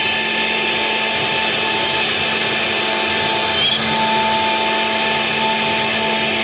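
CNC router running steadily while machining: a constant motor whine with several steady tones over a hiss, and a brief faint high chirp a little past halfway through.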